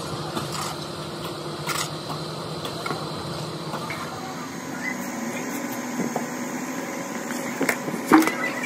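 Steady hum of workshop machinery, with scattered knocks and scrapes as moulding sand is shovelled into a steel flask and packed down; a sharper knock comes near the end.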